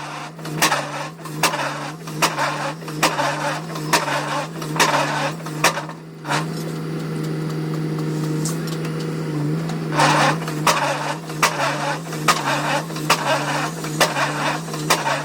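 Excavator-mounted pile-driving hammer striking a foundation pile about three blows every two seconds, over the steady hum of the excavator's engine. The blows stop for about four seconds midway and then start again.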